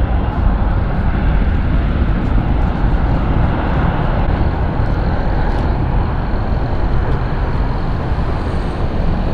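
Airbus A330 airliner's jet engines running steadily as it moves along the runway: an even, low rumble with hiss above it, neither rising nor falling.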